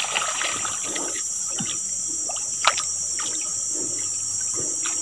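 Swamp water sloshing and trickling around a man wading chest-deep and groping underwater at a snag, over a steady high insect drone. One sharp click comes about two and a half seconds in.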